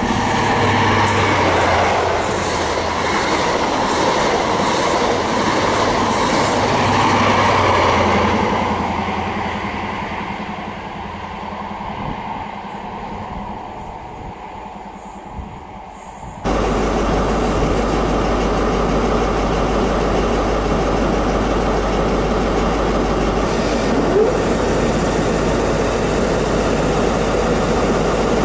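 A High Speed Train with a Class 43 diesel power car running on the line, a steady engine tone under the wheel noise, slowly fading. After a sudden cut, the Class 43 power car stands at the platform, its diesel engine idling with a steady low hum.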